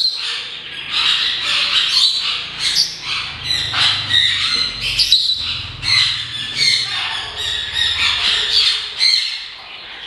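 Many caged parrots squawking and chirping, a dense run of short shrill calls overlapping one another without a break; the most prominent calls come from sun conures.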